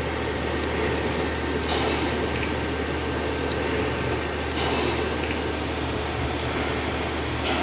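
Portable non-invasive ventilator running: a steady blower hum with a short rush of air about every three seconds, once per delivered breath.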